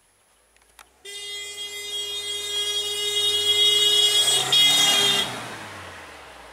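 A vehicle horn sounded in one long blast of about four seconds, starting suddenly about a second in and cutting off. Under it a vehicle's engine runs, its pitch rising and then falling.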